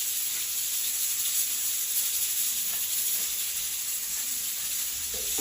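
Fish and tofu braising in a wok, sizzling with a steady hiss.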